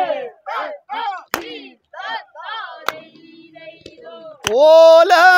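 Vanchipattu (Kerala boat song) voices chanting short rhythmic syllables, with sharp strikes about every second and a half, then breaking into a loud, long held cry about four and a half seconds in.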